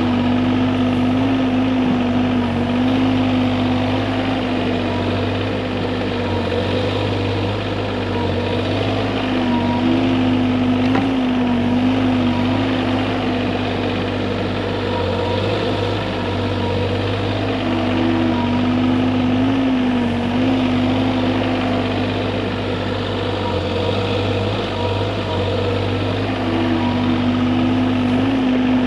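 Bobcat E35 mini excavator's diesel engine running steadily at working speed, its main tone wavering slightly in pitch every few seconds as the hydraulics take load.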